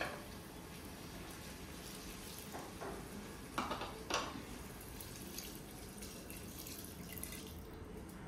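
Water being poured from a glass jug into a pot of vermicelli and minced chicken, a soft, steady pour with a few brief sharper sounds a few seconds in.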